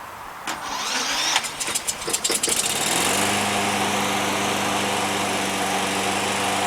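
Briggs & Stratton 190cc single-cylinder lawn mower engine started on its electric starter after a key turn. The starter cranks with irregular clicks for about two and a half seconds, then the engine catches about three seconds in and runs at a steady speed. The start shows the battery and wiring harness are hooked up correctly.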